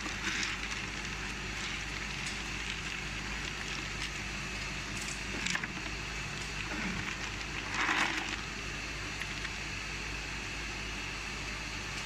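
Steady running noise of a tube ice machine, with ice tubes rattling and clinking three times as a hand stirs and lifts them from the pile; the loudest rattle comes about eight seconds in.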